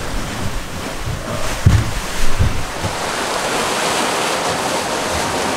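Sea rushing and breaking past a sailing catamaran under way in rough water, with wind buffeting the microphone in heavy low thumps during the first few seconds, then a steadier rush.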